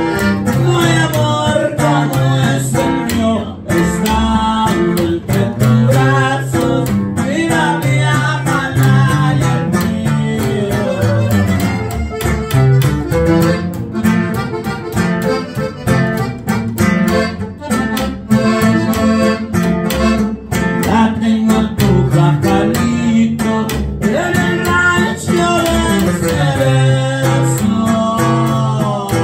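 Live regional Mexican trio music: upright bass, accordion and acoustic guitar playing a song together, the bass walking under the accordion's melody.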